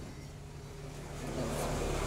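Low steady rumble of a motor vehicle in the background, growing a little louder near the end.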